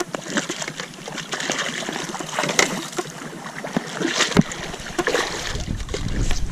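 Water splashing and trickling close by, with irregular sharp splashes. Near the end, wind starts buffeting the microphone with a low rumble.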